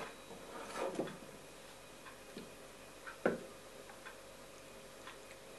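Light knocks and clicks of a plastic water-filter jug being picked up and handled over a metal cezve. The sharpest click comes about three seconds in, followed by faint scattered ticks.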